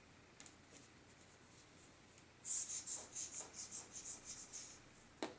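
Squeeze bottle of powder dry shampoo puffing out powder: a quick run of short hissy puffs, about four a second, lasting about two seconds. Before it come soft rustles of fingers parting hair, and a single sharp click near the end.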